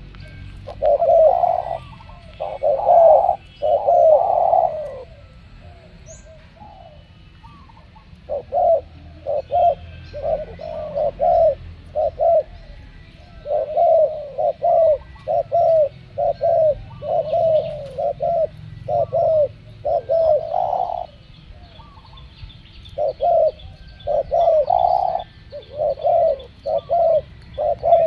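Spotted doves cooing in repeated phrases of short, low coos, with a longer pause about five to eight seconds in. Faint chirps of small birds run underneath.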